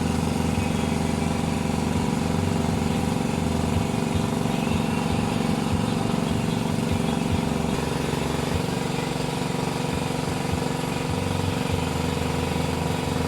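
Isuzu Traga pickup's diesel engine idling steadily.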